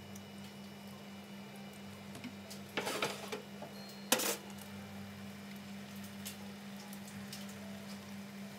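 Kitchen handling sounds at a wok of simmering sauce as raw meatballs are dropped in one by one. A steady low hum sits under a brief clatter about three seconds in and a sharp knock just after four seconds.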